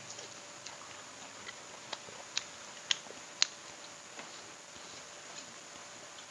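Close-miked mouth sounds of a person eating fried catfish with rice: soft chewing with sharp smacking clicks, four strong ones about half a second apart in the middle.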